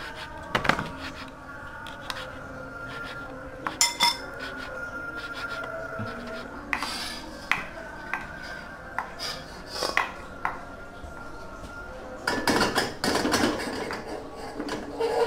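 Kitchen utensils clinking and knocking against pots and dishes, in scattered sharp clinks, with a denser stretch of clatter about twelve seconds in.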